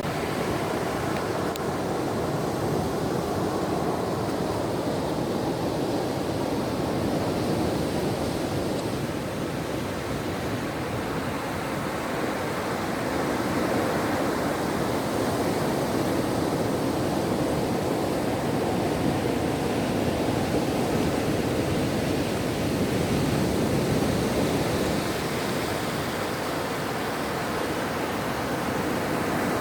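Ocean surf washing onto a shore: a continuous rushing sound that swells and eases slowly over several seconds.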